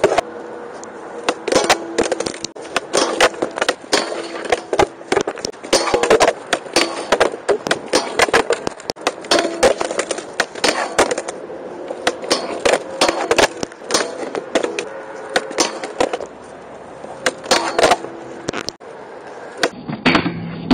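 Skateboard wheels rolling on concrete, with many sharp clacks of the board and its trucks hitting the ground and a metal flat bar during repeated smith grind attempts.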